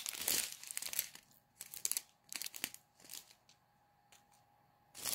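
Thin clear plastic bags of diamond-painting drills crinkling as a strip of them is handled and turned over: rustling in the first second, then a few short separate crackles that die away after about three and a half seconds.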